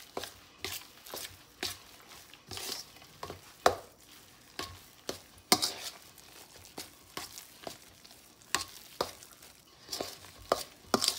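A metal utensil stirring a thick mash of riced potato, shredded cheese and egg in a stainless steel mixing bowl: irregular strokes, a few a second, with scrapes and clinks against the bowl, some louder than others.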